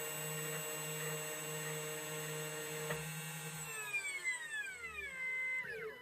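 CNC key cutting machine's spindle motor running with a steady whine while cutting the key. About four seconds in, the pitch falls as the spindle winds down, with a brief level stretch before it drops away at the end: the cut of both sides is finishing.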